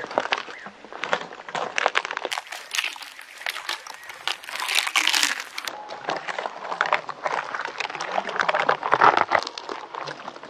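A camel chewing spiny cactus: crunching with many short crackling snaps in a fast, irregular run, loudest about halfway through and again near the end.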